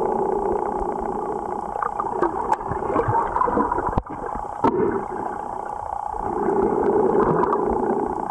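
Muffled underwater sound picked up by a submerged camera: a steady hum with a rushing noise that swells and fades, and a few sharp clicks about halfway through.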